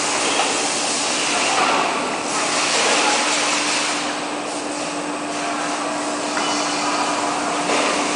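Steady workshop machinery noise: a constant low hum under a hiss that swells and fades.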